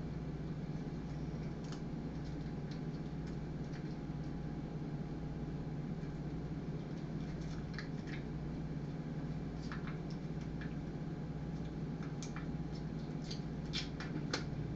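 Faint, scattered clicks and taps of a cat pawing and biting at a tin can of cat food on a hard floor, more of them near the end, over a steady low hum.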